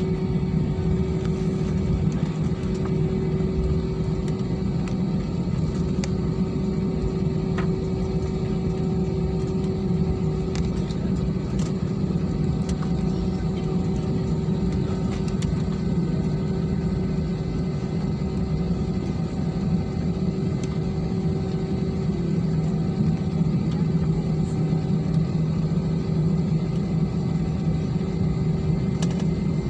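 Airbus A320-family airliner's jet engines at taxi power, heard inside the cabin: a steady low rumble and hum with a held tone above it.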